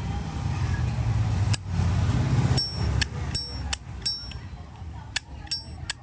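Zippo lighter lid being flicked open and snapped shut over and over: sharp metallic clicks, each with a short bright ringing ping, about two or three a second from about two and a half seconds in. A low rumble fills the first half.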